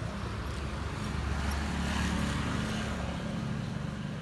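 A road vehicle passing on the street, its engine rumble and tyre noise swelling to a peak about two seconds in and then fading.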